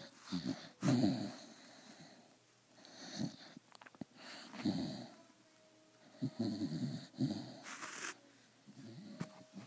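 Quite loud snoring: a string of rattly snores, one every second or two.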